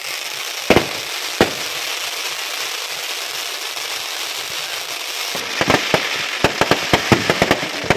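Fireworks: ground fountains hissing steadily, with two sharp bangs about a second in. From a little past five seconds, a fast run of sharp cracks and pops as aerial shells burst.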